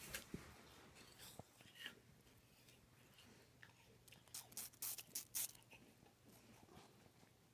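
A rabbit biting and chewing a slice of raw apple held out by hand: faint, crisp little crunches, with a quick run of them about four to five and a half seconds in.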